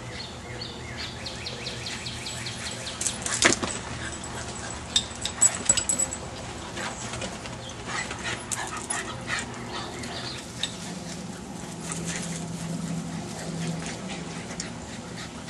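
Boston terriers at play, chasing each other, with dog noises and scuffling. A quick run of ticks comes in the first few seconds, then several sharp, loud sounds between about three and a half and six seconds in.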